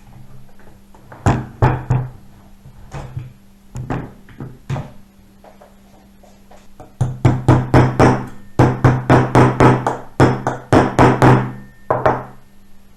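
Repeated knocking: scattered single knocks in the first half, then fast runs of about five or six knocks a second from about 7 seconds in until near the end, over a steady low hum.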